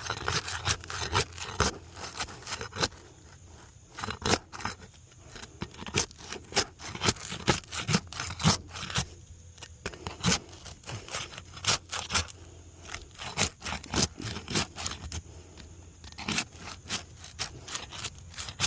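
Roof shingles being pried up off their nails: a tool scraping under the shingles, with a fast irregular run of sharp scrapes, clicks and crackles.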